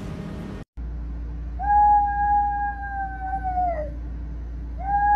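Small dog howling: one long, steady howl about two seconds long whose pitch drops as it ends, and a second howl starting near the end. A low steady hum runs underneath.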